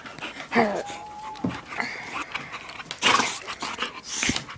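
An excited dog whining and panting. A short cry comes about half a second in, then a thin held whine, then two quick breathy bursts later on.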